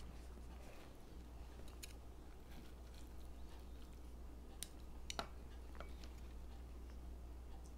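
Faint, irregular clicks of wooden chopsticks picking at food and tapping the dishes, a handful of them, with a low steady hum underneath.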